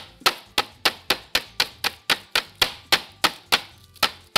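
Flat of a broad chef's knife slapping lamb rib chops sealed in a plastic bag on a bamboo cutting board, pounding them thin. A quick, even run of sharp smacks, about four a second.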